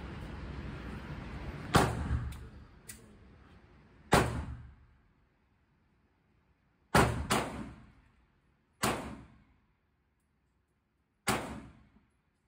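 Gunshots in an indoor shooting range: about six sharp reports at irregular intervals, two of them close together about seven seconds in, each with a brief ringing tail.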